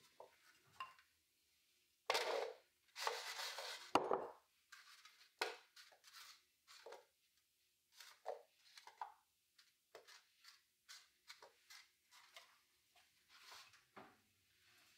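Kitchen clatter as cubes of butternut squash are tipped from a glass bowl onto a metal sheet pan: a rattling clatter about two seconds in ending in a sharp knock, then scattered light knocks and clinks of the pan and bowl.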